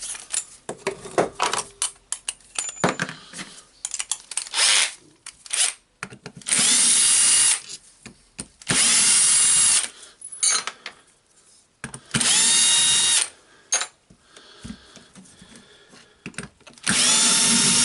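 Cordless drill-driver run in four bursts of about a second each, its motor whining up to speed and holding, as screws are driven out of the jigsaw's gear housing. Small clicks and knocks of parts being handled come between the bursts.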